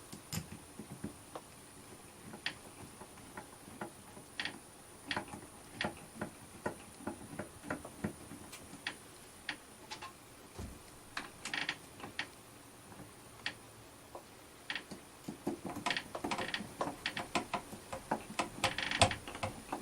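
Small, irregular clicks and taps of metal screws and a hand screwdriver as mounting screws are started into an RV door lock handle. The clicks are sparse at first and come thicker near the end.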